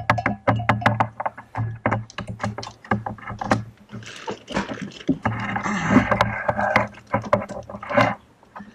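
Things being rummaged through and handled on a cluttered workbench: a quick run of clicks, clinks and knocks, with a longer rustling scrape about halfway through.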